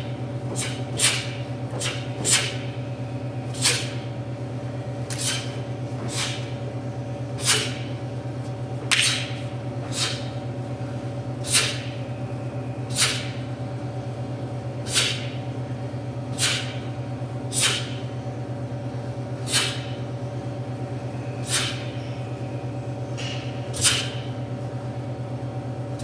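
Cotton Taekwon-Do uniform snapping sharply with each punch, strike and block of a solo pattern: about twenty crisp snaps, unevenly spaced one to two seconds apart, over a steady low hum.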